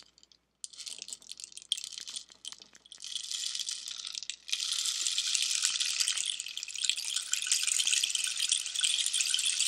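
Cholla-cactus rain stick turned over, its filling trickling down past the nails inside: a sparse patter of small clicks that thickens about four and a half seconds in into a steady shower that sounds like rain.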